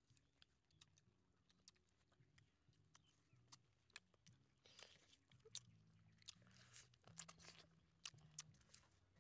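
Close-up mouth sounds of people eating roasted chicken legs: chewing and lip-smacking with many small sharp clicks and a few short crunches.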